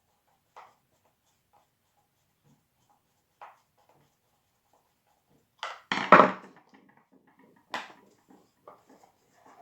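Small clicks and knocks of little bolts being handled and fitted into a melodeon's wooden keyboard, with a louder clatter of knocks about six seconds in and a few faint ticks after.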